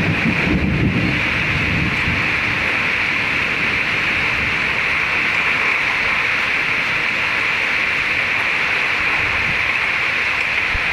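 Heavy rain falling steadily in a thunderstorm, with a low rumble that dies away in the first couple of seconds.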